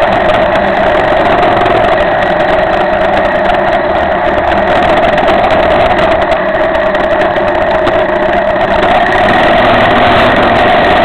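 Cagiva Elefant 600 motorcycle's engine running steadily while riding, heard from a camera mounted on the bike.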